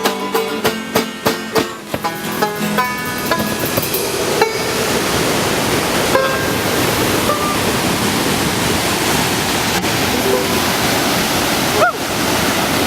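The last plucked notes of an acoustic banjo ring out and fade over the first few seconds. After that a loud mountain creek rushes steadily on its own.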